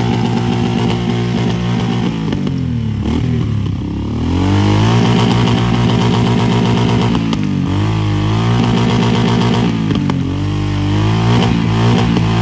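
A vehicle engine running hard, its revs dropping and climbing again several times.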